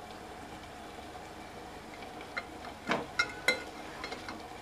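Chicken pieces shallow-frying on low flame, a low steady sizzle. From about two and a half seconds in, a few sharp metallic clinks ring out as a fork knocks against the metal pan while the pieces are turned over.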